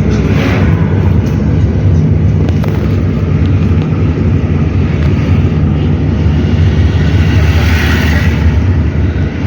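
Car on the move: a steady low rumble of engine and road noise, with a hiss that swells briefly about eight seconds in.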